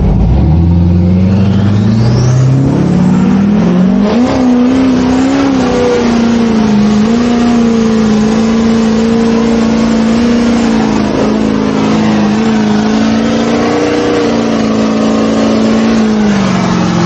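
GMC Denali truck's engine revving up over about four seconds and held at high revs through a burnout, the rear tyres spinning against the pavement, then the revs drop off near the end.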